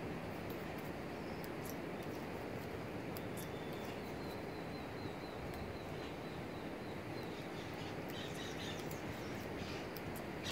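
Steady outdoor background hiss with faint bird chirps and a thin high whistle in the middle, over scattered light ticks as a nylon fishing net is knotted by hand with a netting needle.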